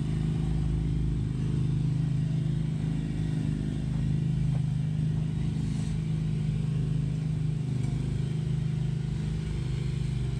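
Engine of a small ride-on double-drum roller running steadily at one even pitch as it compacts crushed asphalt.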